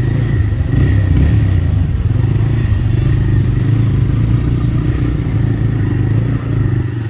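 TVS Raider 125's single-cylinder engine running steadily as the bike rides slowly in second gear through traffic.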